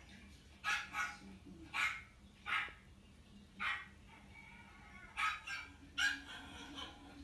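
A Chihuahua barking: about eight short, high barks, coming singly and in pairs, with a pause in the middle.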